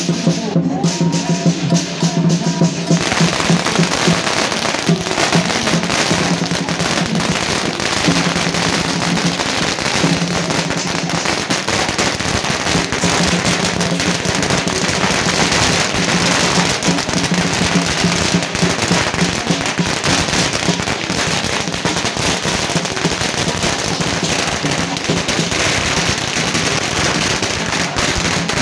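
A long string of firecrackers going off in a dense, unbroken crackle that starts about three seconds in, over lion dance drumming that carries on underneath. Firecrackers set off for a lion dance at the Lunar New Year.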